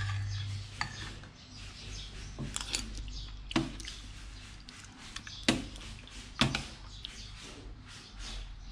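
Metal spoon clinking against ceramic soup bowl and plate while spooning soup onto rice: scattered sharp clinks, the loudest a little past halfway.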